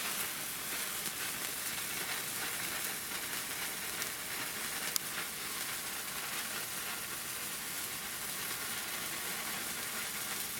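Three Phantom Fireworks Neon sparklers burning together with a steady fizzing hiss, and one sharp snap about halfway through.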